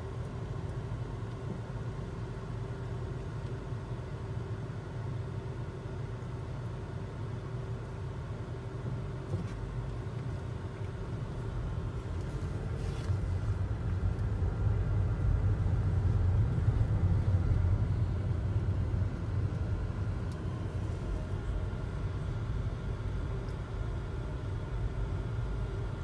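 Car interior sound in slow stop-and-go traffic: a low engine and road rumble with a faint steady hum, swelling somewhat a little past the middle as the car moves forward.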